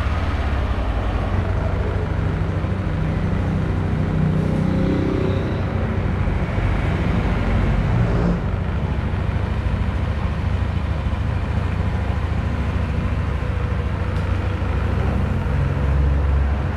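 Yamaha NMAX scooter's single-cylinder Blue Core engine running steadily at idle, just after an oil change.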